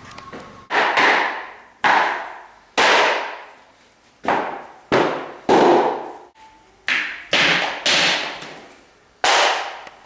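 Rubber mallet striking bamboo click-lock floorboards to tap their joints closed. There are about ten blows at uneven spacing, each a sharp knock that fades away.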